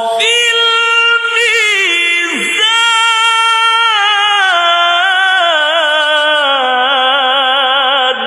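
A male qari reciting the Quran in melodic tajweed, drawing out one long ornamented note without breaking into separate words. The pitch dips and recovers about two and a half seconds in, and the note takes on a fast wavering trill in its second half.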